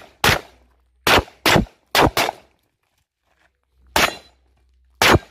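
A 9mm 1911 pistol firing about eight shots: three quick pairs in the first two and a half seconds, then two single shots about a second apart near the end.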